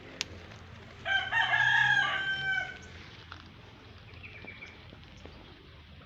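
A rooster crowing once, starting about a second in: one long call lasting under two seconds.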